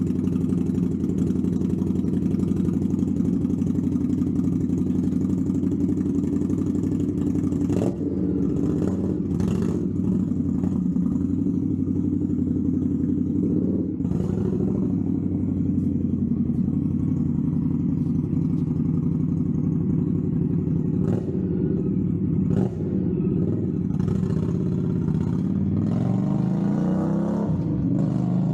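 2023 Indian Scout Bobber Twenty's V-twin engine running through newly fitted Tailgunner "Six Shooters" slip-on exhausts, idling steadily with a few short throttle blips, then revving up, its pitch rising, near the end.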